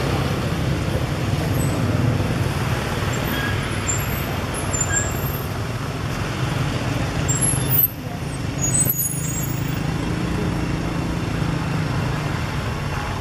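Steady low background rumble of road traffic, with a few brief, faint high chirps near the middle and a short dip in loudness about eight seconds in.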